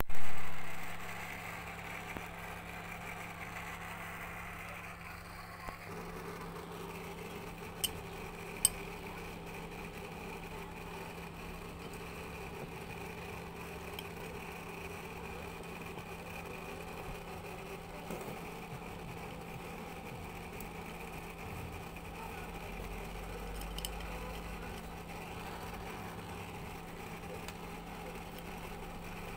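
Car engine idling steadily with an even, unchanging hum. A sharp, loud bang just after the start dies away over about a second, and two short clicks come a little over a quarter of the way in.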